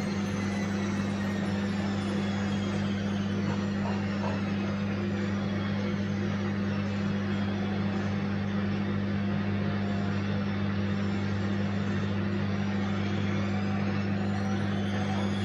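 Bosch washing machine running with a steady low hum and a faint motor whine that slides slowly down in pitch, then rises again near the end as the drum changes speed.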